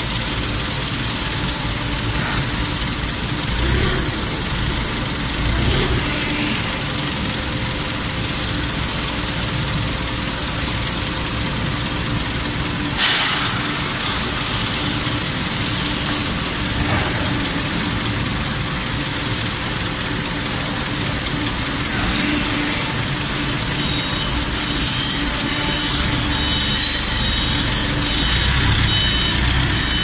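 Steady industrial machine noise with a constant hum, from the gas-fired tilting aluminum crucible furnace equipment as it pours and tilts back. A few knocks and clanks break through, the sharpest about 13 seconds in.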